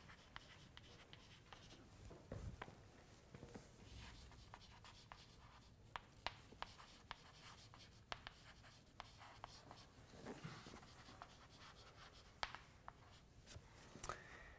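Chalk writing on a blackboard: faint scratching strokes with many short, sharp taps as the chalk meets the board.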